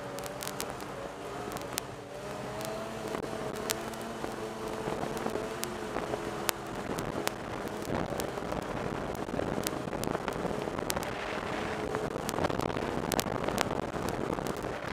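Snowmobile engine running under way, heard from the rider's helmet-mounted camera, its pitch wavering slightly. From about eight seconds in, a rushing wind noise grows louder and covers the engine tone. Sharp clicks are scattered throughout.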